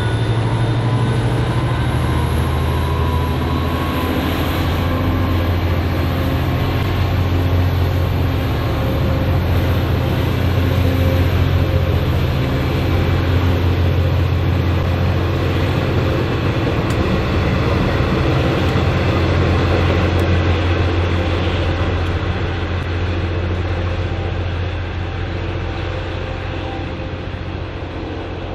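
V/Line N class diesel-electric locomotive (EMD V12 two-stroke) running under a train with a steady deep rumble, fading over the last several seconds as it draws away.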